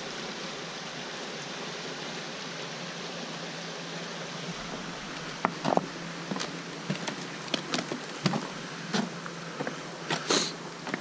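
Steady rush of a small woodland stream running fast with thaw and rain water. About halfway through, footsteps on the wooden footbridge planks come in as sharp, irregular knocks over the water.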